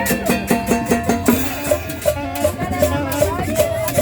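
Upbeat Latin tropical dance music, with a fast, steady shaker rhythm under a melodic line.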